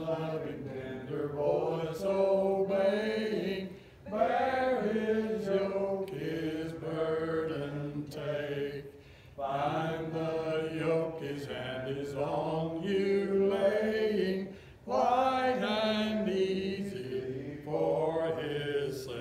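A congregation singing a hymn in unaccompanied four-part style, in slow phrases of held notes with short breaks between lines.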